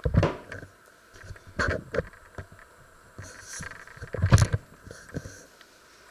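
Handling noise from a handheld camera: several separate dull thumps and knocks. The loudest come at the very start and about four seconds in, with smaller ones between.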